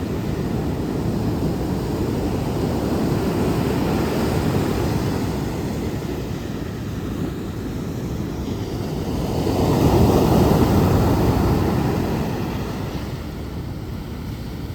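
Ocean surf on a beach: a steady rushing wash of waves, with one wave swelling and breaking loudest about ten seconds in, then easing off.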